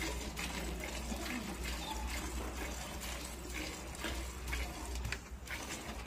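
Milk squirting in repeated short jets into a steel bucket as a Murrah buffalo is milked by hand.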